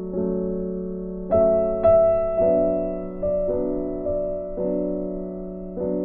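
Background piano music: soft chords struck about once a second and left to fade.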